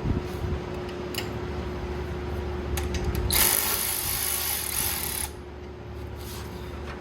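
Mechanic's tools working on a go-kart's front suspension bolts: scattered clicks and ratcheting, with a loud hiss of about two seconds in the middle that cuts off suddenly.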